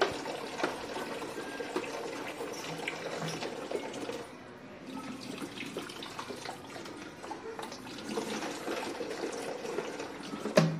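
Water running steadily from a wall tap into a plastic bucket, with small knocks and clatters over it and a sharper knock near the end.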